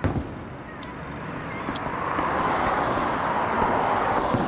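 Aerial fireworks: one sharp bang right at the start, then a steady rushing noise that swells over a couple of seconds and holds, with no distinct pops in it.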